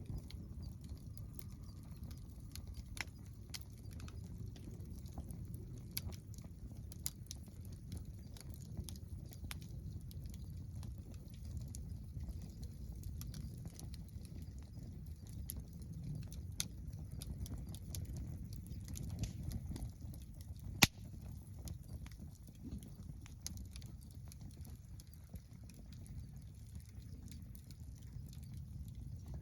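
Wood campfire crackling, with irregular sharp pops over a steady low rumble and one loud crack about two-thirds of the way through.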